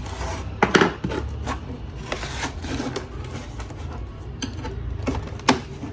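Clicks, scraping and knocks from a plastic LCD monitor casing being handled and taken apart, with two louder knocks, one near the start and one near the end, over a steady low hum.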